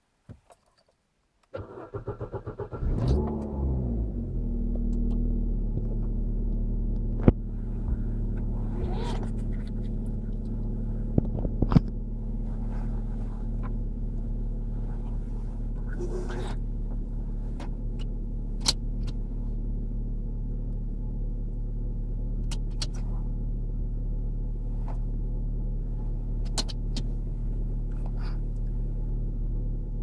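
Corsa C engine cranked over by the starter for about a second and a half, catching about three seconds in, then settling into a steady idle. A few sharp clicks sound over the idle.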